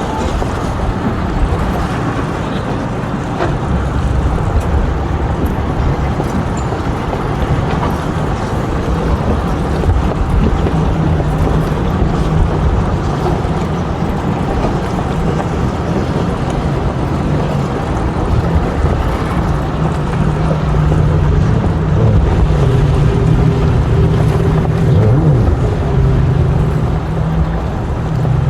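An engine running steadily over a loud, low rumbling noise, its hum growing stronger in the second half.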